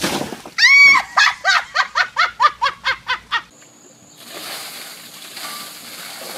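A run of about ten short, high-pitched cries, falling in pitch, from someone hit with ice water. About four seconds in, a bucket of ice water pours over a person, a steady splashing rush.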